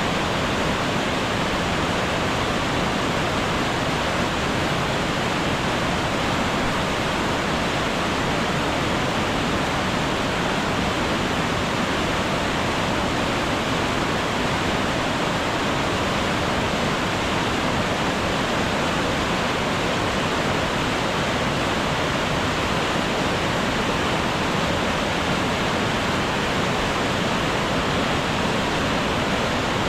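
Mountain waterfall: water pouring over rocks in a steady, unbroken rush.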